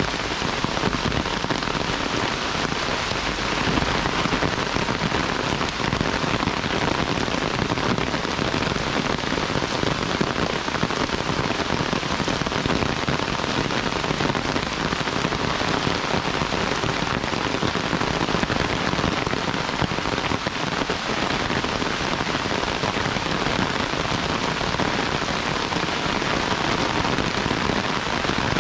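Heavy rain falling steadily, an even, unbroken hiss of drops.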